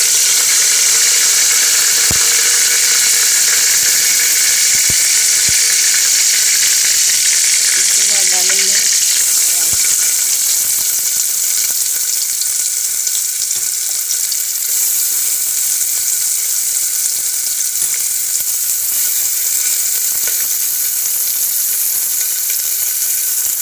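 Hot mustard oil sizzling steadily in an aluminium pressure cooker, with curry leaves frying in it. A few faint clicks sound over the hiss.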